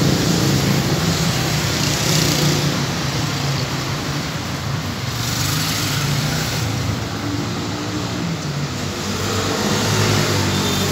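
Steady motor traffic noise: a low engine hum runs throughout, with two swells of hiss about two and five seconds in.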